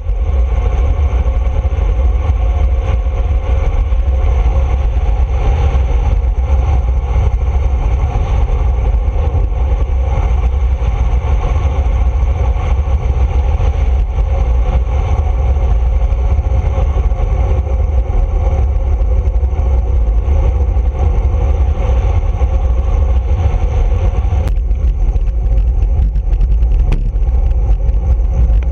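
Wind buffeting the microphone of a handlebar-mounted action camera on a road bike at speed, a steady heavy rumble, with tyre noise on asphalt underneath.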